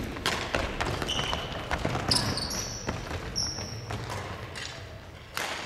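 A basketball being dribbled on a hardwood gym floor, with players' sneakers squeaking in several short, high-pitched chirps and footsteps thudding on the boards.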